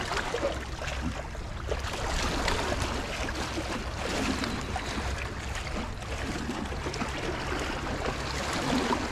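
Lake water lapping and splashing against the rocks of a breakwall, with wind rumbling on the microphone.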